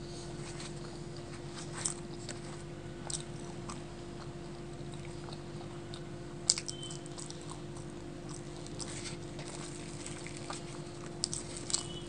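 Close-miked chewing and mouth sounds of a person eating luchi (deep-fried puffed bread), with scattered soft clicks and a crisp tearing of luchi by hand. The sharpest click comes about halfway through, and a few more cluster near the end. A steady low hum runs underneath.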